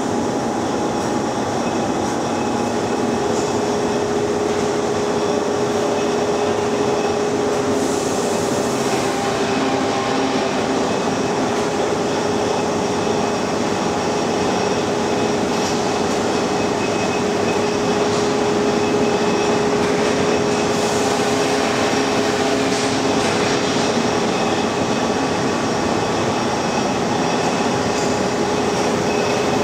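Steady machinery noise: an even rushing din with a constant hum underneath, unbroken throughout, with a few brief hisses on top.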